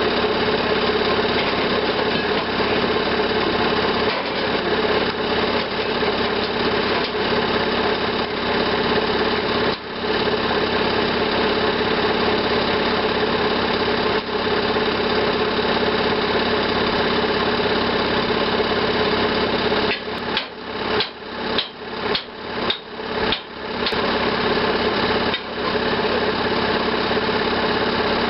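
Plasma cutter running as it cuts steel plate: a loud, steady hiss and hum. About twenty seconds in, it cuts out and restarts about six times in quick succession.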